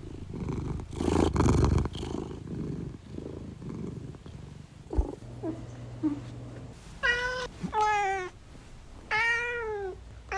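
Domestic house cat purring with a steady low rhythm, then meowing three times in the second half: two shorter meows close together, then a longer one with its pitch falling.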